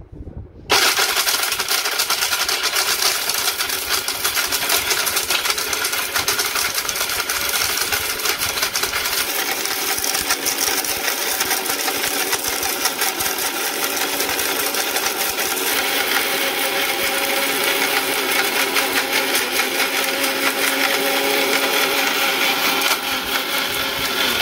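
Boss 'Cyclone' 850-watt mixer grinder with a copper motor, running at full speed with its small stainless-steel dry jar, grinding dried turmeric into powder. It starts about a second in and runs steadily, a motor whine over dense grinding noise, shutting off right at the end.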